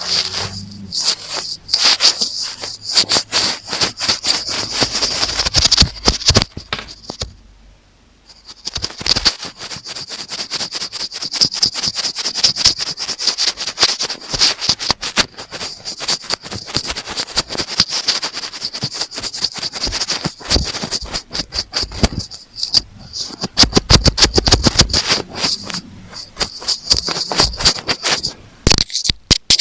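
Rapid scratching and tapping on an earphone microphone, heard close up as a dense crackle of clicks and scrapes, with a brief pause about seven and a half seconds in.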